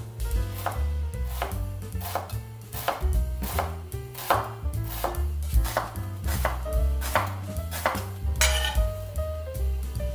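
Knife chopping on a cutting board in an even rhythm, about one stroke every 0.7 seconds, over background jazz music.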